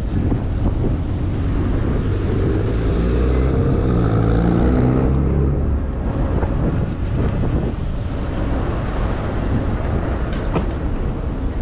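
Wind buffeting the microphone during an e-bike ride in city traffic, with a motor vehicle's engine passing close by from about three to six seconds in.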